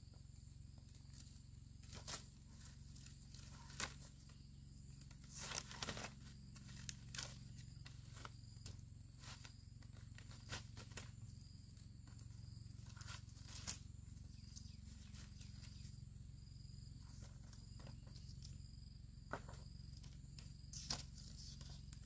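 Sparse light clicks, taps and rustles, with a short busier patch of rustling about five seconds in, over a steady low hum.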